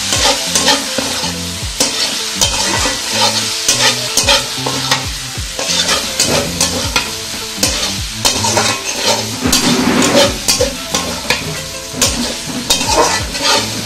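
Spatula scraping and knocking against a metal kadai in irregular strokes as potato strips and eggplant are stirred into spice paste, over the sizzle of frying.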